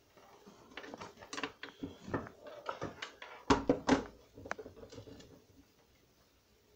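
Irregular clicks, knocks and rustles of objects being handled close to the microphone, loudest in a quick cluster of knocks about halfway through, then dying away.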